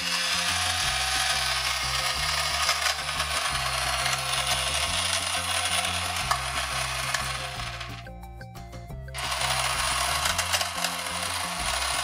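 Pink toy toilet's flush button sound, a rushing, hiss-like flush noise from a small toy speaker, starting the instant the button is pressed. It runs about seven seconds, dies away, and starts again with a second press about nine seconds in.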